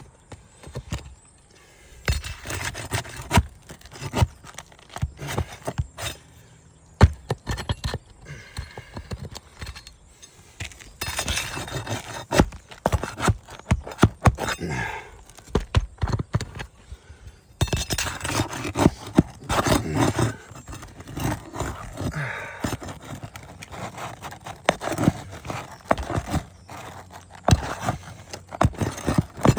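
Old 3-tab asphalt shingles being worked loose for removal: irregular scraping against the gritty shingle surface, with many sharp clicks and knocks. These are the sounds of prying up a shingle and freeing it from its nails.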